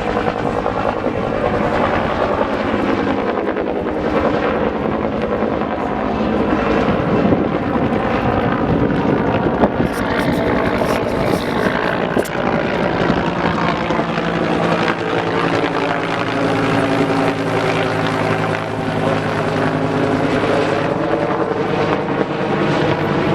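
Firefighting helicopter flying close by: a steady, loud rotor chop with a turbine tone that shifts in pitch in the second half as it moves.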